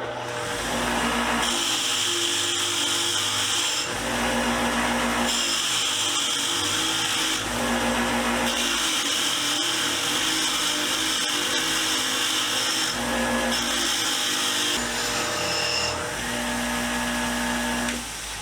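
Power wire wheel spinning while a rusty wrench is pressed against it to strip the rust. The pitch keeps shifting back and forth every second or few as the wrench is pushed in and eased off.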